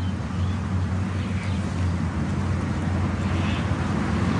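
Steady low hum under a constant background hiss.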